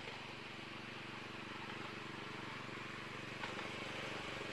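An engine running steadily with a fast, even pulse, slowly growing louder.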